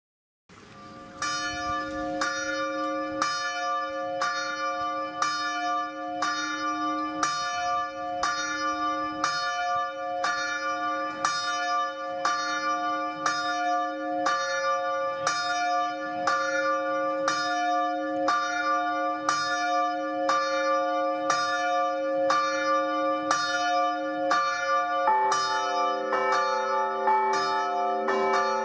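A church bell tolling, struck about once a second and ringing on between strokes. About 25 seconds in, a second, lower-pitched bell joins it.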